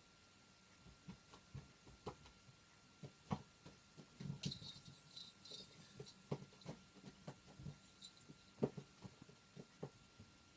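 Faint scattered clicks and soft rustles as a four-day-old kitten stirs in a hand, with a brief faint high squeaking about halfway through.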